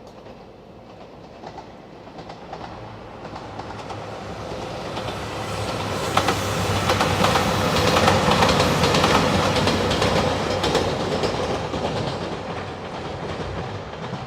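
A train passing close by: its running noise grows steadily, is loudest about eight seconds in with the wheels clacking over rail joints, then fades.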